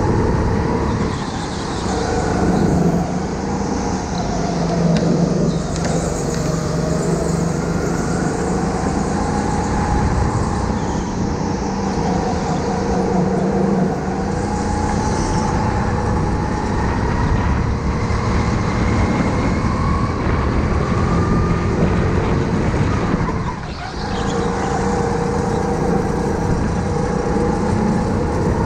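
Onboard sound of a go-kart's motor under way, its pitch rising and falling with speed. The level drops briefly twice, about a second and a half in and near the end, as the throttle lifts.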